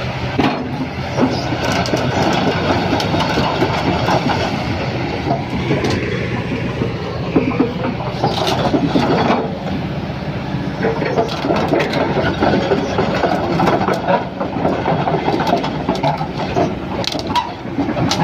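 Excavator's diesel engine running steadily under load, with irregular metallic clanking and rattling throughout.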